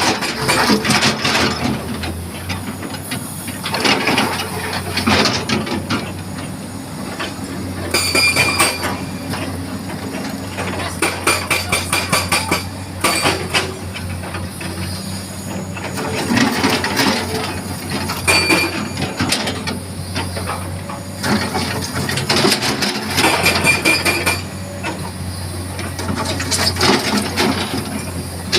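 Komatsu excavator's diesel engine running steadily under load, with repeated metallic clanks and knocks and short high squeals as it scrapes mud.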